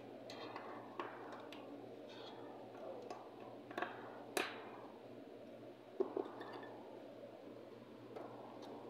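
Screwdriver working screws out of the metal case of an Ascom 9000 Plus mobile phone repeater: scattered small metallic clicks and scrapes, the loudest a close pair of clicks about six seconds in, over a steady low hum.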